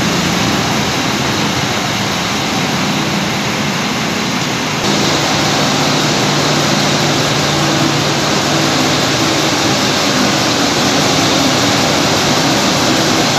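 Large diesel coach engines running steadily at standstill, a low hum under a broad rushing noise. The sound changes abruptly about five seconds in.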